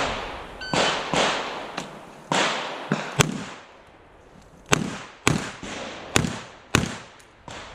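Smith & Wesson 325 Thunder Ranch .45 ACP revolver firing a string of about ten shots at uneven spacing, each crack trailing off in a short echo.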